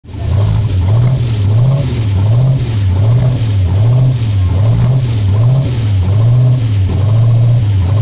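Ford GT40 replica's engine running loudly, its pitch rising and falling evenly about once every 0.8 seconds.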